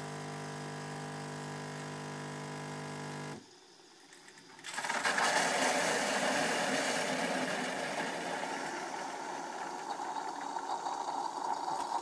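Bosch Tassimo pod coffee machine making the frothy milk from a milk pod. Its pump hums steadily and cuts off suddenly about three and a half seconds in. After a short pause, a loud hissing rush starts as the milk dispenses into the mug, then slowly eases off.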